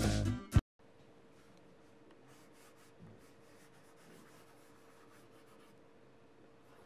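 Music with guitar and drums cuts off abruptly about half a second in; then a stylus scratches faintly across the plastic surface of an LCD writing tablet, over a faint steady hum.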